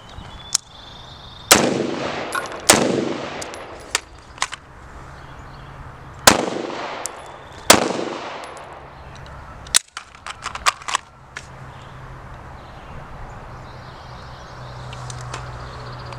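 Four loud gunshots at uneven intervals, each followed by a long echo fading away, with fainter sharp cracks in between.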